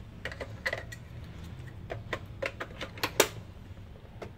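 Hard plastic case of a compact label printer being handled: a scatter of short clicks and knocks as it is turned over and moved, the loudest knock about three seconds in.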